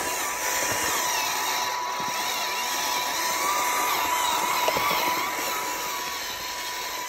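Electric drive motor and gears of a radio-controlled toy tractor whining steadily as it strains to pull a trailer with a person sitting on it. The battery is run down.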